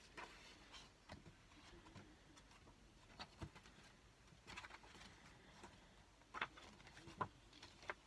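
Pages of a thick paper craft book being leafed through: faint paper rustles and flicks, with a few sharper taps, the loudest near the end.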